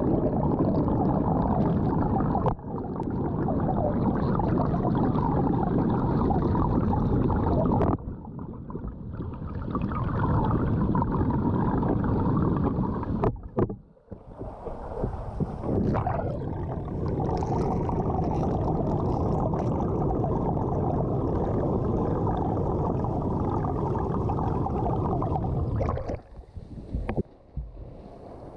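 Muffled, steady rushing and churning of pool water picked up by a submerged camera while a swimmer swims front crawl past it. The noise cuts off and resumes abruptly several times, and near the end it drops to a quieter, broken splashing.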